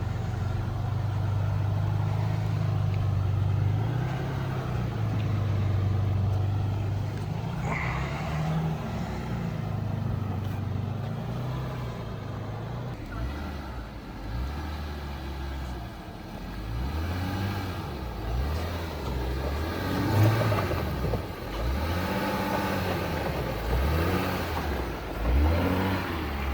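Jeep engine crawling at low speed, running steadily at first, then revved up and down repeatedly from about halfway through while working over trail obstacles.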